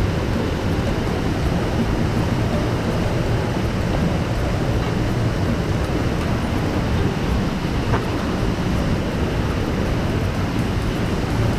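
Steady rushing water, a continuous even roar that stays at the same level throughout.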